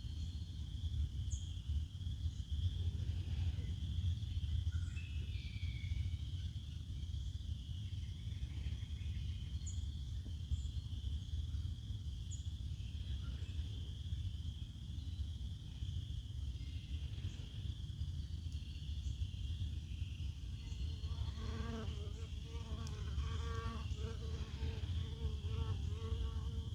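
A steady high-pitched buzzing chorus of insects over a low rumble of wind on the microphone, with a few brief bird chirps. Near the end, a low call repeats in quick pulses.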